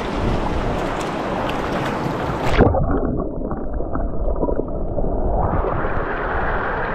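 Shallow stream water rushing over rocks. About two and a half seconds in there is a splash as the microphone goes under the surface. The sound turns muffled and gurgling underwater, then partly clears near the end as the microphone comes back up.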